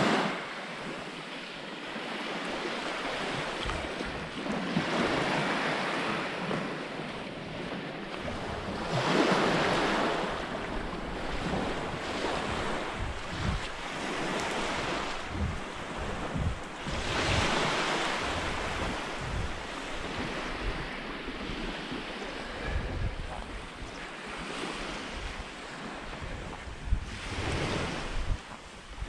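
Small waves of the Baltic Sea washing onto a sandy shore, each wash swelling and fading every few seconds, with wind buffeting the microphone.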